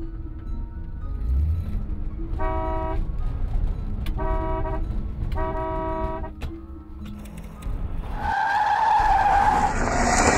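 A car engine and road noise rumble steadily while a vehicle horn honks three times, each blast about half a second long. About eight seconds in, tyres begin to squeal in a skid that grows louder to the end.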